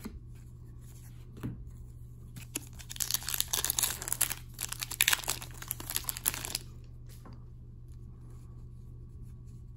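A foil trading-card pack being torn open, its wrapper crinkling for about three and a half seconds, starting about three seconds in.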